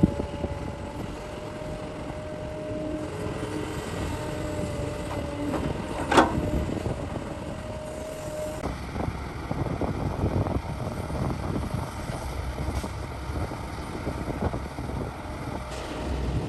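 Heavy diesel engine of a Cat 6015B hydraulic excavator running steadily, with one sharp loud bang about six seconds in. From about nine seconds on there is a rough, irregular clatter.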